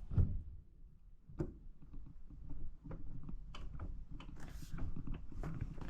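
Scattered clicks and knocks of steering-column parts being handled and fitted by hand. The two loudest knocks come just after the start and about a second and a half in, with lighter ticks in between.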